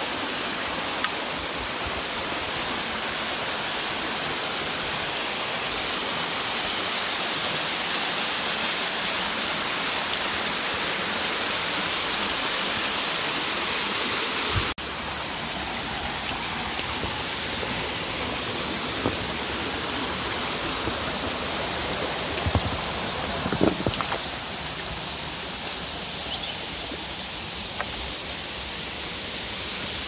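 A small woodland waterfall rushing steadily over layered rock ledges into a pool. About halfway through, the sound changes abruptly to water sliding over the lip of the fall, with a few low bumps near the end.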